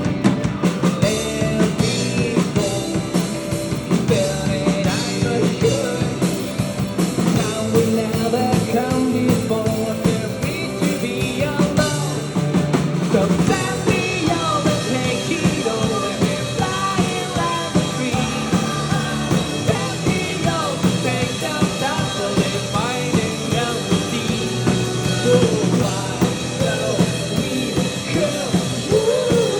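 Live rock band playing a song, with a drum kit and a singer's voice.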